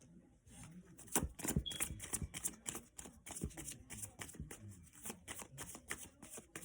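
A deck of cards being shuffled by hand: a quick, uneven run of soft flicks and slaps that picks up about a second in.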